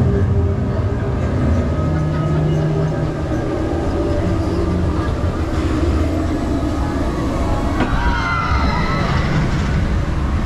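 Vekoma roller coaster train rolling slowly along its steel track, its wheels giving a steady low rumble. Wavering higher tones join about eight seconds in.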